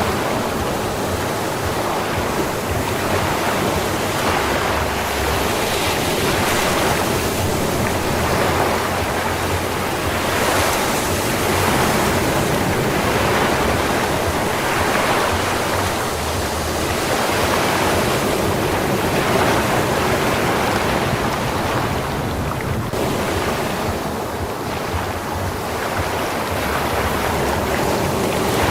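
Sea waves washing onto a sandy beach: a continuous rushing surf that swells and eases every few seconds.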